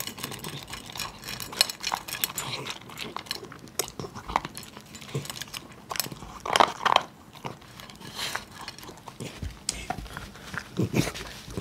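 Miniature schnauzer eating fast from a metal bowl: a quick, irregular run of chewing and crunching clicks as it bolts its food.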